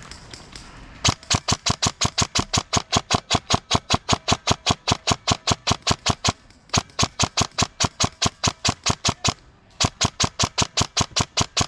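Airsoft gun firing on full auto: three long bursts of rapid, evenly spaced shots. The first starts about a second in, with short pauses between the bursts.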